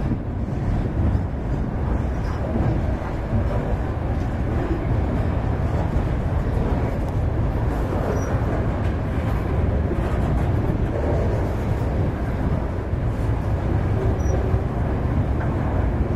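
Freight train of covered hopper cars rolling across a steel truss bridge: a steady rumble of wheels on rail and railcars passing.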